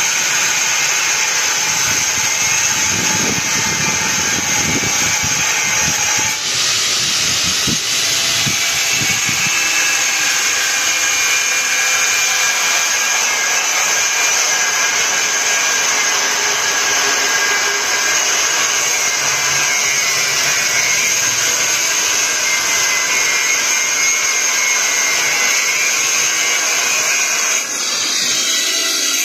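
Power tool running steadily with a high whine and hiss, with a few low knocks in the first part and a brief surge about six seconds in.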